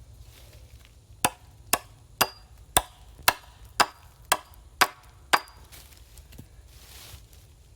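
Nine sharp blows of a hand tool, evenly spaced about two a second; the last lands a little past halfway through. Several leave a brief high ring.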